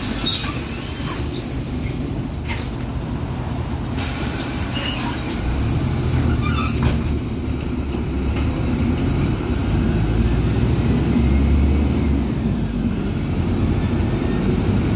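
Cabin noise of a moving PAZ 320414 bus: steady engine and road rumble that grows louder and deeper about halfway through, with a few faint clicks and rattles.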